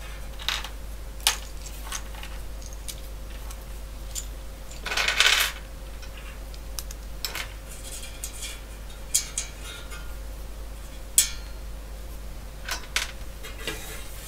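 Small plastic clips and metal clamp strips clicking and clattering as they are taken off a metal card cage and set down on a workbench, with one longer scrape about five seconds in.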